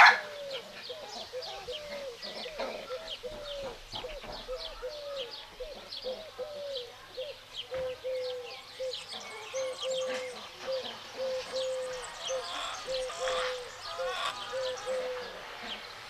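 Chicken clucking in a steady series of short notes, about two a second, with small birds chirping rapidly throughout.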